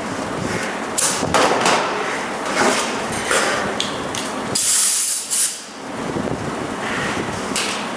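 Sheet-metal fabrication noise over a steady background hum: a run of short, sharp metallic knocks or crackles, then a hissing burst lasting about a second.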